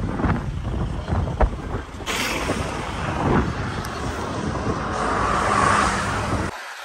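Wind buffeting the microphone of a phone held out of a moving car's sunroof, over the car's low road rumble. The rush turns brighter about two seconds in, and the rumble cuts off suddenly just before the end.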